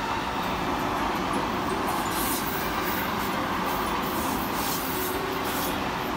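Seibu 9000 series electric commuter train running past close by: a steady rumble and rush of wheels on the rails, without letting up.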